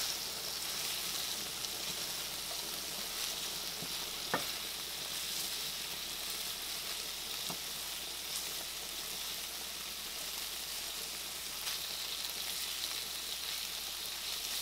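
Chicken pieces sizzling steadily in oil in a nonstick frying pan while a wooden slotted spatula breaks them up and scrapes across the pan, with a sharp tap of the spatula about four seconds in.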